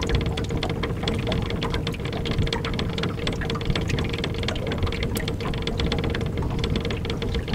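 Small aluminium boat under way: its motor running steadily with a constant whine over a low rumble, while water slaps and patters rapidly against the metal hull.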